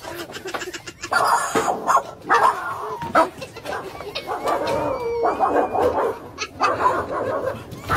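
Several dogs barking repeatedly over one another, set off by a snowman in the yard.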